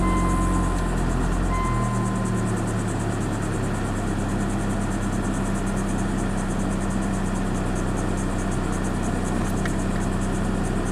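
Mazda 626's 2.0 L FS four-cylinder engine idling just after a cold start, on its first start since the throttle body and idle air control valve were refitted; the idle settles to a lower, even pitch about two seconds in. A brief high beep sounds twice in the first two seconds.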